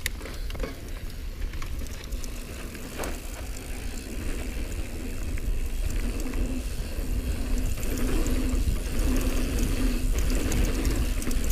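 Mountain bike rolling fast down a dry dirt singletrack: wind buffeting on the microphone, tyre noise over dirt, and the bike rattling over bumps. It gets louder about halfway through as the speed picks up.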